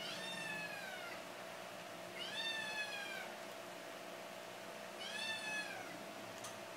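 Three drawn-out, meow-like animal cries about two and a half seconds apart, each rising briefly and then falling in pitch, the last one shorter.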